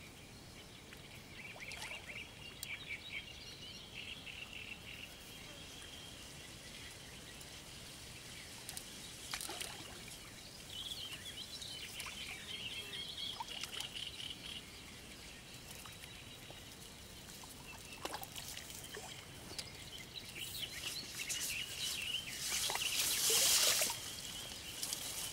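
Birds singing in spells over faint outdoor ambience, with scattered clicks. Near the end there is a loud burst of splashing water as a hooked carp is drawn into the landing net.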